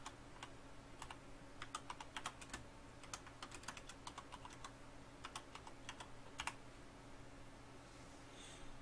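Faint typing on a computer keyboard: a quick, uneven run of key clicks that stops about two-thirds of the way through, over a steady low hum.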